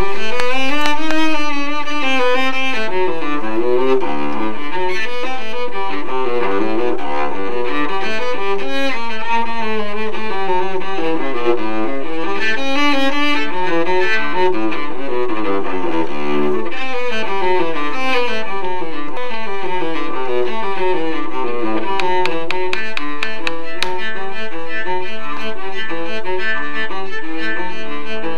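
Background music: bowed strings playing a melody that moves up and down over held notes.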